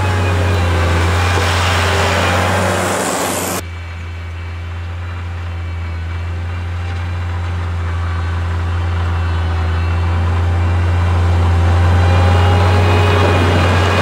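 Avant compact loader's engine running steadily while it plows snow with a front blade, growing louder as it comes close near the end. A loud hiss laid over the engine in the first few seconds cuts off suddenly.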